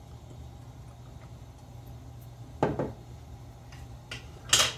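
Kitchen handling noises at a stovetop over a low steady hum: a short knock about two and a half seconds in and a brighter clatter near the end, typical of an oil bottle and pan being handled.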